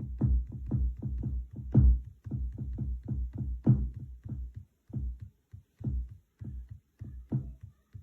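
Electronic drum sounds: deep kick-like thumps with lighter, sharper hits in an uneven pattern, separated by short silent gaps.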